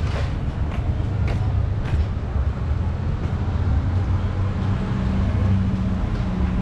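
Steady low rumble of a motor vehicle's engine, with a few light clicks in the first two seconds.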